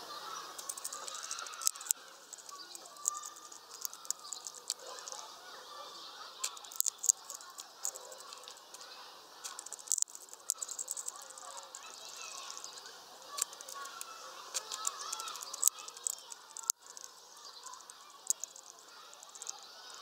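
Hawfinch at a seed feeder, with sharp, irregular clicks and cracks as its heavy bill works sunflower seeds. A faint steady background murmur runs underneath.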